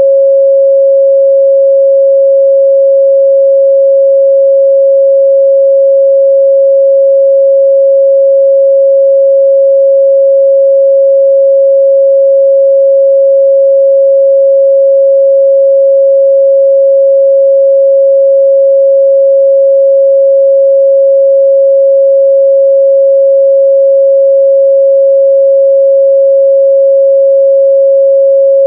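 A continuous, loud 547 Hz sine-wave test tone, one pure steady pitch that does not change.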